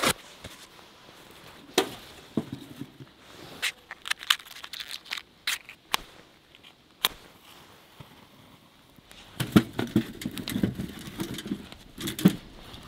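Split kindling being handled in a small metal box wood stove: scattered sharp knocks and clatters of wood against the metal firebox. In the last few seconds there is a denser run of clatter and crackle as pieces of wood go onto the burning fire.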